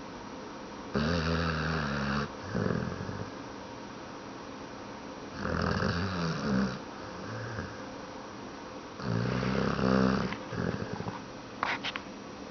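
Snoring: three long snores about four seconds apart, each followed by a shorter, softer one, with a few sharp clicks near the end.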